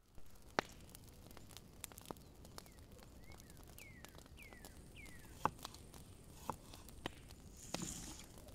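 Faint outdoor ambience with scattered sharp clicks and taps. A bird gives five short falling chirps in the middle. Near the end there is a brief rustle of handling.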